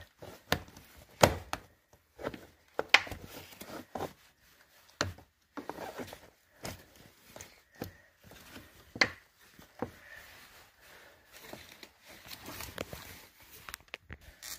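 2011–2015 Ford Explorer's hard plastic door sill trim being pried up with a screwdriver: irregular plastic clicks, knocks and snaps as its retaining clips and tabs let go. The sharpest snaps come about a second in, about three seconds in and again about nine seconds in.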